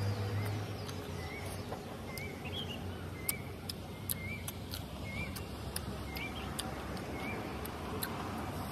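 Eating close to the microphone: chewing with many sharp mouth clicks. In the background a bird repeats a short chirp about once a second, and a low hum fades out just after the start.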